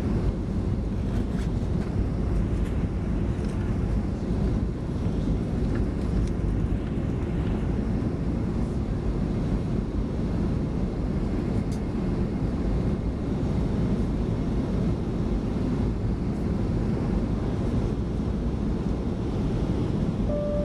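Steady cabin noise of a Boeing 737-400 in flight on approach: an even, low engine and airflow roar with a few faint clicks.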